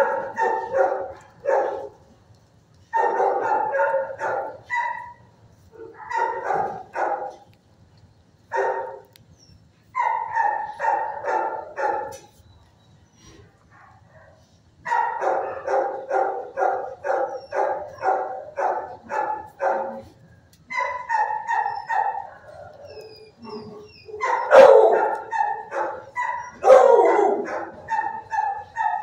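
A dog barking in a shelter kennel: bouts of quick, high barks at about three or four a second, broken by short pauses.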